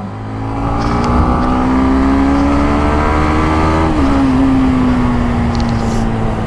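Yamaha MT-15's 155 cc single-cylinder engine accelerating in third gear, its pitch rising steadily. About four seconds in the pitch drops as it shifts up to fourth, then holds a steady cruise, with wind noise under it.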